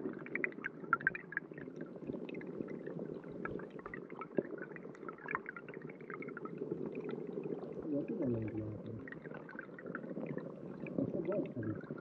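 Stream water trickling and gurgling, heard underwater on a GoPro: a steady low rumble, with many small clicks and ticks scattered through it.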